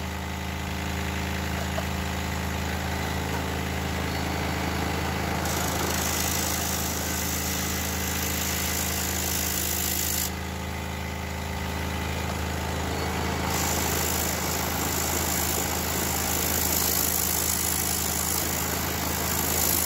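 Pégas 21-inch scroll saw running with a sanding band clamped in place of the blade, a steady hum with many tones. Twice, for about five seconds from about five seconds in and again from about thirteen seconds in, a high hiss joins it as the band sands a piece of foamed polystyrene.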